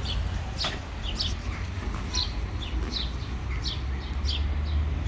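Small birds chirping, a string of short, high, falling chirps about two to three a second, over a steady low rumble.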